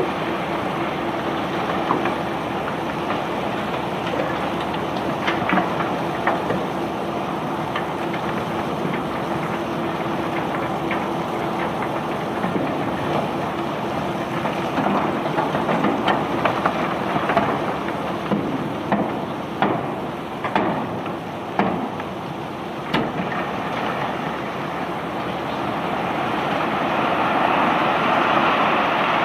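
Rock-carrying conveyor belt running: a steady mechanical rumble with a low hum, and scattered knocks of rock through the middle stretch, growing a little louder near the end.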